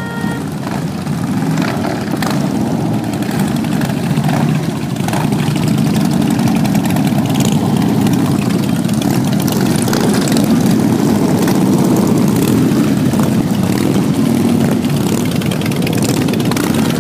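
Many V-twin cruiser and touring motorcycles riding past one after another, their engines blending into one steady, continuous rumble that grows a little louder about five seconds in.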